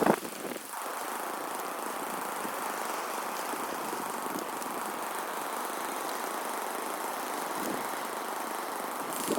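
Snowmobile running steadily along a snowy trail, with a sharp knock right at the start.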